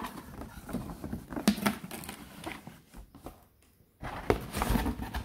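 Cardboard packaging being handled: scattered knocks, scrapes and rustles from a cardboard shipping carton and the boxed coffee machine inside it. There is a near-silent pause about three seconds in, then louder rustling near the end.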